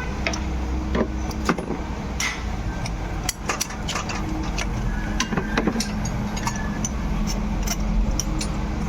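Metal hand tools, a spark-plug socket and wrench, clicking and clinking at irregular intervals as a spark plug is unscrewed from a Hyundai Verna petrol engine. A steady low hum runs underneath.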